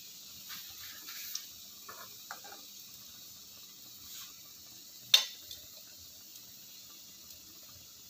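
Cooking oil sizzling with a steady soft hiss around banana fritters in a wok, the flame just turned low. A few light clicks come in the first couple of seconds, and one sharp click about five seconds in.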